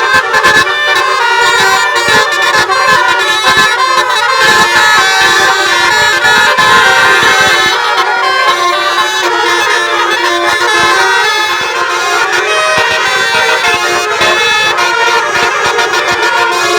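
Tour-bus 'telolet' Basuri musical air horns playing loud melodic tunes, the notes shifting from one pitch to the next without a break.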